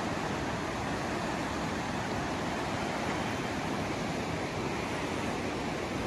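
The Ganges, a fast Himalayan mountain river, rushing steadily over its rocky bed: an even, unbroken wash of flowing water.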